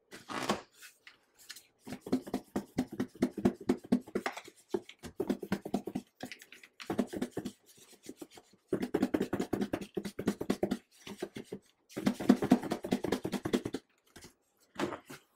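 Raw shrimp being shaken in a lidded plastic bowl of flour, cornmeal and cornstarch to coat them in breading: about five bouts of rapid rattling and thudding, each a second or two long, with short pauses between.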